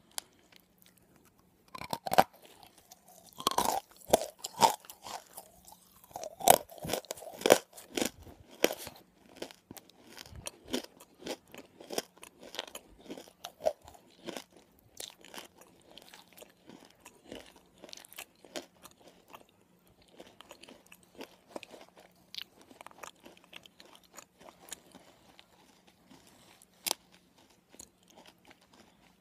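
Close-up biting and chewing of a crumbly white lump of Nakumatt eating chalk: sharp crunches, loudest in the first eight seconds or so, then a long run of softer gritty crunching as it is chewed down.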